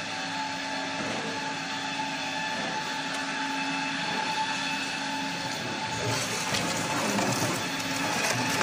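Automatic toilet paper log saw cutting machine running: a steady mechanical hum with several steady tones. From about six seconds in it gets slightly louder and more rattly.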